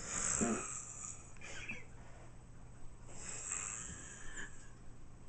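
A person snoring heavily in sleep: two long snores, one at the start and another about three seconds later.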